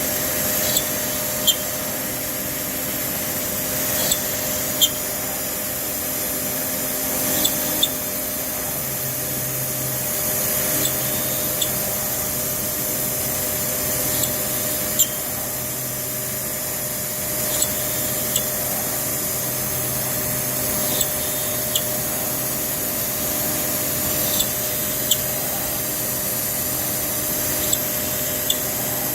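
CNC router spindle running steadily with a high whine while drilling 8 mm holes in an acoustic panel. Short sharp sounds come in pairs about every three seconds.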